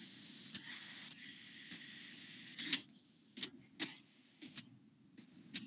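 A block eraser wiping marker off a whiteboard: a steady scrubbing hiss for the first few seconds, then several short, separate swipes.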